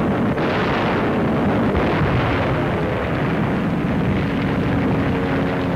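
Air-raid sound effects of bomb blasts and fire, a dense, steady roar without clearly separate single bangs.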